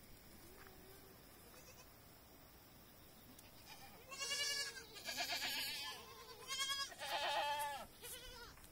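Young goat kids bleating: a quick run of about five wavering bleats, starting about four seconds in.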